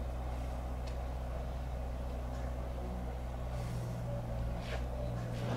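A steady low hum with a few faint, short clicks over it.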